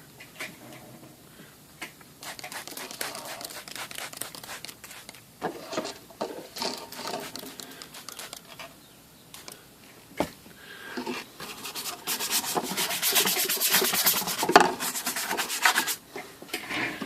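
Hand scrubbing of a typewriter case lid during cleaning, a run of quick back-and-forth rubbing strokes with pauses between, heaviest and fastest in the last few seconds.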